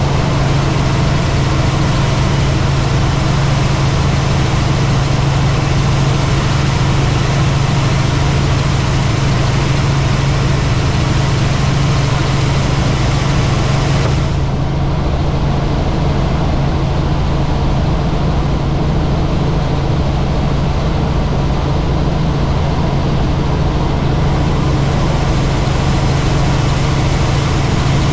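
Helicopter engine and rotors running steadily, a loud constant low hum under a wide hiss. About halfway through, the high part of the hiss drops off suddenly.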